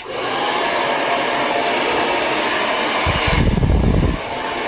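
Lange Soleil hair dryer with a diffuser attached switching on and blowing steadily. About three seconds in, a low rumble joins it for about a second and the hiss drops a little.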